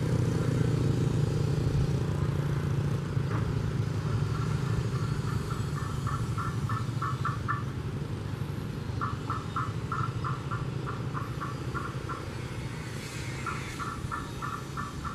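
A nearby motor vehicle engine hums steadily and slowly fades away. Three short runs of quick, evenly spaced high chirps sound over it, a few seconds apart.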